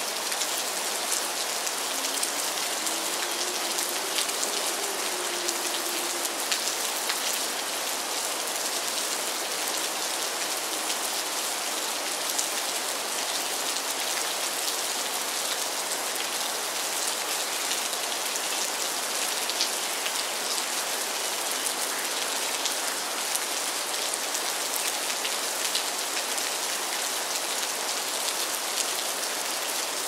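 Steady rain falling on a river's surface: a dense, even hiss peppered with the ticks of single raindrops.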